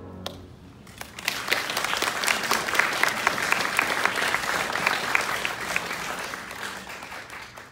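The last chord of an upright piano dies away, then an audience breaks into applause about a second in; the clapping builds quickly, holds, and thins out near the end.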